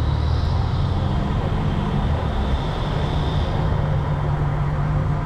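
Volkswagen Touareg engine running steadily, a low drone.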